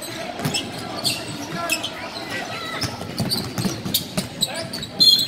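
A basketball is dribbled on a hardwood gym floor, with sneakers squeaking during play. Near the end a short, sharp, high squeal is the loudest sound.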